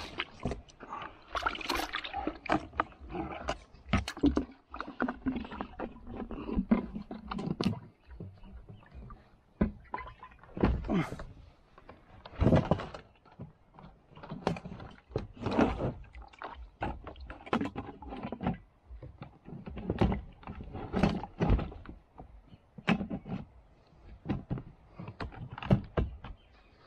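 Kayak paddling: irregular paddle splashes in the water with sharp knocks every second or two.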